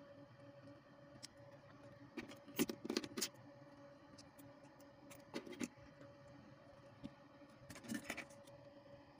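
Small hand tools and a battery pack being handled on a workbench mat: a few bursts of light clicks and metallic taps, the busiest about two to three seconds in, over a faint steady hum.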